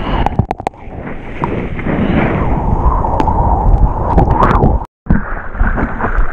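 Sea water rushing and splashing around a bodyboard riding through surf, heard through a waterproof action-camera housing, with droplets ticking on the case. The sound drops out completely for a moment about five seconds in, then resumes.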